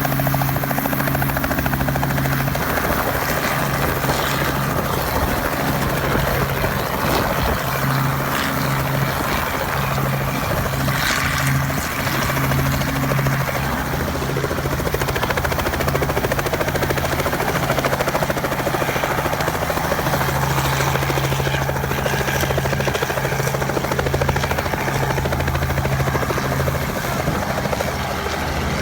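Helicopter running steadily: a constant low hum under a broad, even rushing noise.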